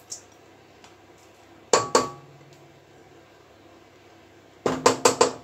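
Kitchen clatter as softened butter is scraped from a glass bowl with a silicone spatula into a stainless-steel stand-mixer bowl: two sharp knocks a little under 2 s in, then four quick knocks near the end as bowl and spatula strike the rims.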